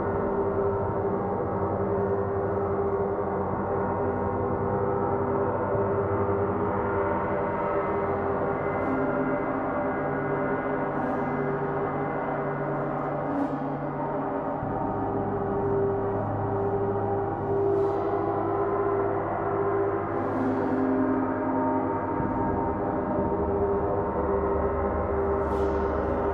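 A triple gong bath: three large gongs, including a Paiste gong and a Mars planet gong, struck softly and repeatedly with a fleecy beater, so their tones blend into one continuous, swelling wash. The deep tones change about halfway through and again near the end as different gongs are played.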